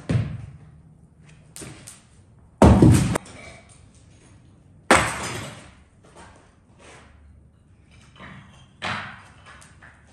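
Rubbish and debris being thrown down and cleared out of a room: a run of sudden crashes and thuds, the loudest a half-second crash about three seconds in and another with a rattling tail about five seconds in.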